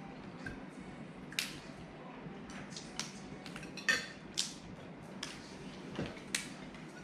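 Irregular sharp cracks and clicks as boiled Dungeness crab shells are broken open by hand, mixed with plates and cutlery clinking during the meal.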